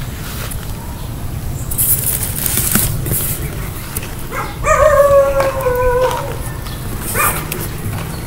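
An animal's drawn-out call: one long tone lasting about a second and a half, falling slightly in pitch, about halfway through. Brief rustling comes before it, over a steady low rumble.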